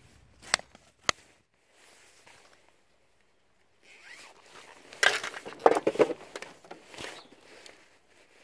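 Fishing gear handled by hand as the rods are packed up: two sharp clicks about a second apart, then a few seconds of rasping, crackling handling noise.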